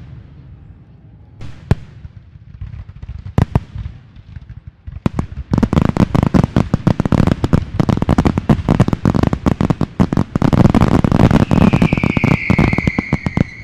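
Aerial fireworks going off: a few separate sharp bangs at first, then from about five seconds in a dense, rapid crackle of many reports. Near the end a high whistle, falling slightly in pitch, sounds over the crackling.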